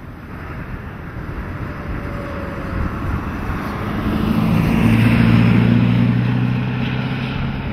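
A vehicle drives past close by, its engine hum and tyre noise swelling to a peak about five seconds in and then easing off. It is a storm-chase vehicle with a weather-instrument mast on its roof.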